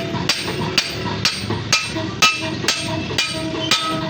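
Hand hammer striking steel on an anvil in a steady rhythm, about two blows a second, each blow ringing briefly.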